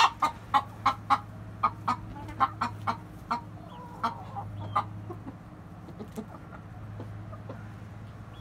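Chickens clucking: a quick run of short, sharp clucks, about two a second, that thins out after about five seconds.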